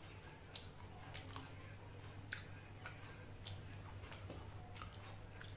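A person chewing a mouthful of food, with faint, scattered soft clicks from the mouth about every half second, over a steady low hum.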